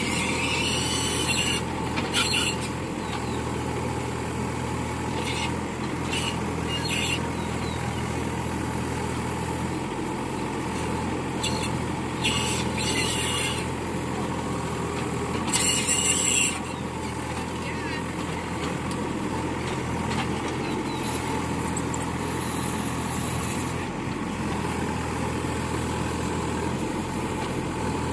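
2.5-tonne mini excavator's Yanmar diesel engine running steadily under working load, with short bursts of high hiss several times, the loudest about sixteen seconds in.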